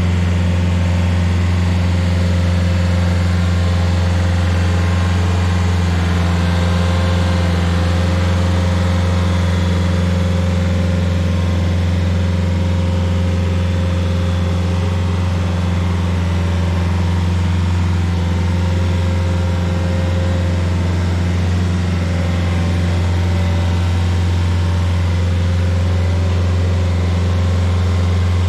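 Rayco RG50 stump grinder's engine running steadily at a constant speed while the machine is driven slowly up to its trailer.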